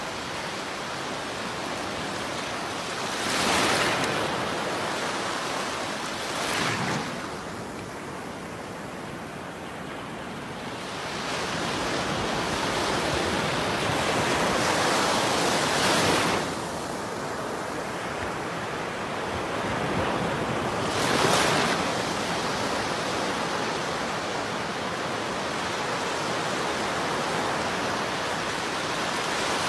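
Ocean surf breaking on a beach: a steady wash of water with a louder wave crashing every several seconds.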